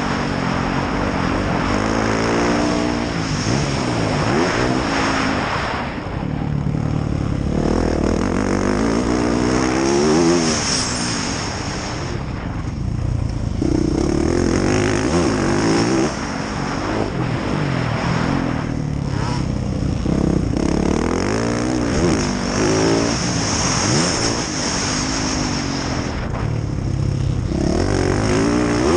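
Yamaha YZ450F motocross bike's single-cylinder four-stroke engine being ridden hard. The revs climb again and again, drop at each shift or roll-off, and climb once more.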